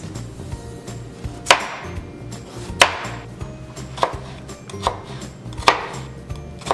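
Kitchen knife chopping potatoes on a cutting board: five sharp chops, about a second apart.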